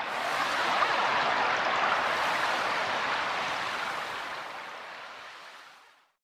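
A steady rushing noise that swells over the first second, then slowly fades and cuts off to silence shortly before the end.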